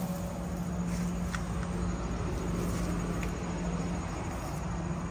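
Steady low motor hum with a few faint ticks.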